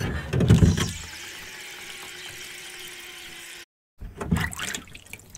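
Hands setting whetstones into a metal pan of water: a loud clatter of handling and water for about a second, then a steady hiss with a faint hum. The sound breaks off briefly, then there is more knocking as the stones are moved around in the pan.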